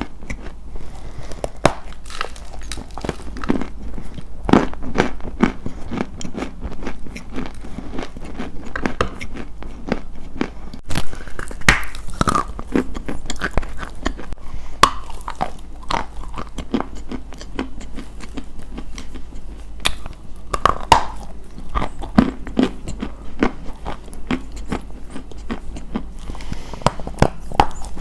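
Close-miked ASMR crunching: a dense run of sharp, brittle crunches and crackles, with bites and chewing. A few louder crunches come about halfway through and again near three quarters of the way.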